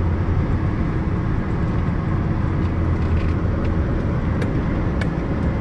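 Steady low road and engine noise of a moving car, heard from inside the cabin.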